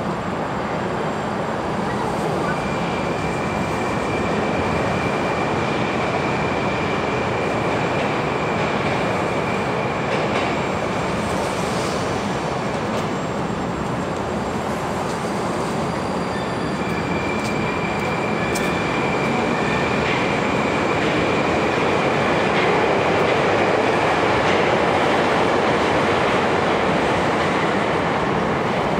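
Electric commuter train at the platform: a steady rumble of rail and equipment noise, with a thin high whine that holds for about ten seconds, stops, and comes back for several seconds more. The noise swells a little in the later part.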